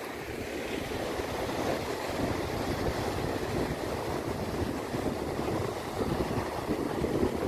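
Strong wind buffeting the microphone with a low, gusty rumble over the steady rush of heavy storm surf breaking on a sandy beach.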